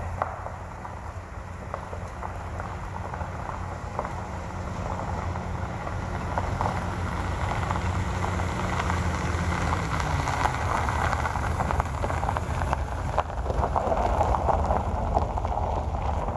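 A vehicle driving on a rough road: a low, steady engine note that drops in pitch about ten seconds in, under a crackling hiss of tyres on the road surface that grows louder toward the end.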